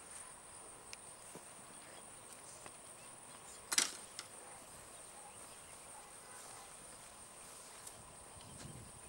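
Faint steady high-pitched insect drone, like crickets, in the outdoor quiet, with one sharp click about four seconds in and a smaller one just after.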